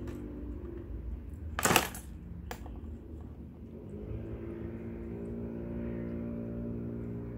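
A sharp clatter of a small hard object striking the plastic divided tray the cats are playing at, about a second and a half in, then a lighter click about a second later. Soft background music with held chords plays under it.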